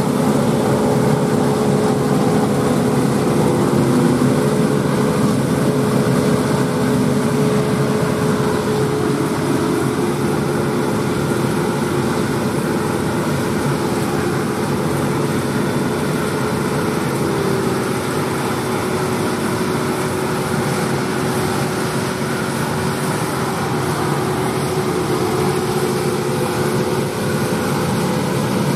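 John Deere 8R tractors running steadily under load while pulling KMC six-row peanut pickers: a continuous diesel drone mixed with the noise of the pickers' machinery. The engine tones shift slightly in pitch about a third of the way in and again just past halfway.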